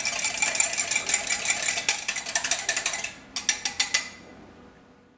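A fork beating eggs in a glass measuring cup: rapid clicking of metal tines against the glass. It stops about three seconds in, a few more strokes follow, then it fades out.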